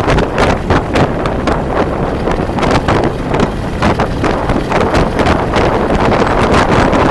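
Loud wind buffeting the microphone of a 360-degree camera on a moving vehicle, a steady rush that flutters irregularly.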